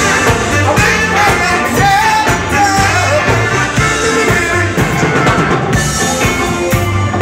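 Live funk-soul band playing: electric bass, electric guitar and drum kit, with a voice singing a wavering melody line over it.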